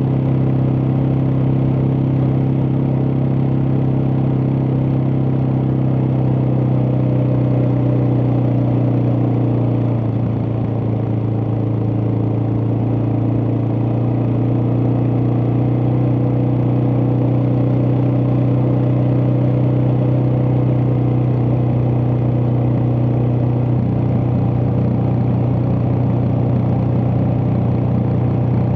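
Suzuki DR650's single-cylinder engine running steadily under way, its pitch holding nearly constant, with a slight dip in engine speed about ten seconds in.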